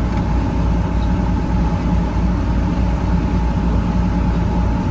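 Boat engine running steadily, a constant low hum with a few steady tones above it.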